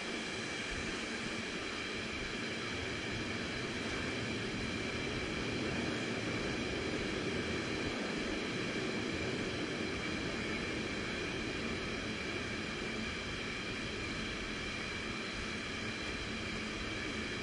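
Long freight train of Innofreight container wagons rolling past at steady speed: a continuous rumble of wheels on rail with a faint, constant high ringing over it.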